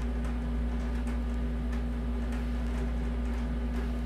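A steady low background hum with a faint steady tone above it and a few faint light clicks.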